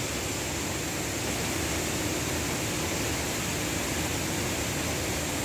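Steady rush of flowing water from the spring's falls and stream, an even hiss with no breaks.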